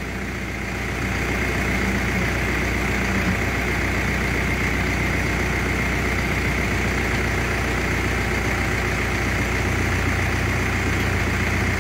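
Tractor engine idling steadily while its hydraulics lift and lower the disc harrow's transport wheels; the engine note shifts slightly about a second in and again near the end.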